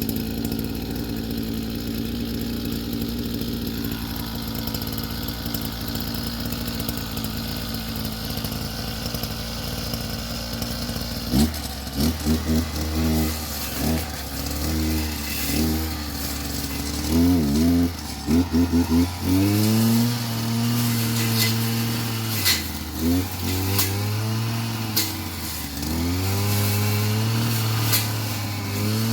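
A small petrol engine running steadily, then, from about a third of the way in, revved up and down over and over. Sharp clicks sound over it in the second half.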